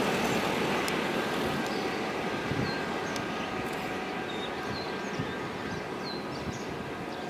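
Passenger train rolling away on the rails, its steady rumble slowly fading as the last carriage recedes. Small birds chirp faintly over it in the middle seconds.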